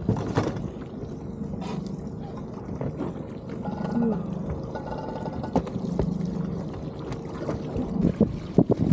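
Steady low hum of the boat's motor, with water pouring and splashing as a shrimp pot comes out of the water, and a few sharp knocks near the end.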